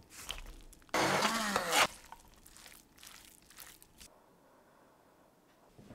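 Cooked rigatoni pasta tipped from a mesh strainer into a pan of roasted vegetables: a loud rush about a second in, lasting under a second. Softer scraping and stirring sounds follow.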